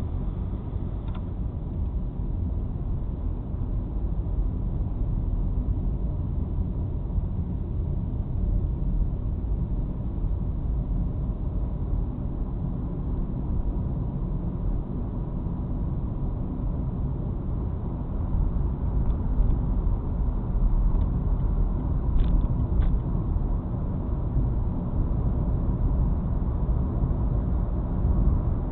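Volkswagen Polo sedan with the 1.6-litre CWVA petrol engine and automatic gearbox on the move: a steady low rumble of engine and road noise, a little louder from about eighteen seconds in.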